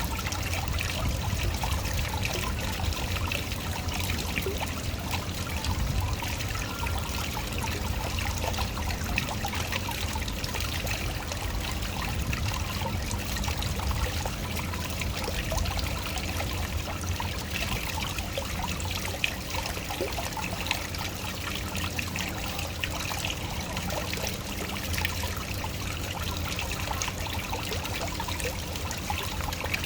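Small waterfall running steadily, water splashing and trickling over rocks.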